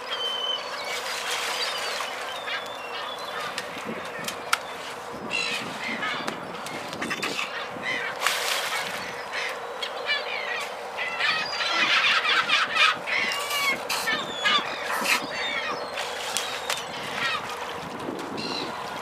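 A flock of gulls calling over the water, many harsh overlapping calls, busiest about twelve seconds in, with the odd sharp splash or knock among them.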